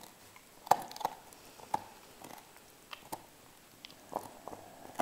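Dog gnawing a bone: irregular crunches and clicks of teeth on bone, with short pauses between bites.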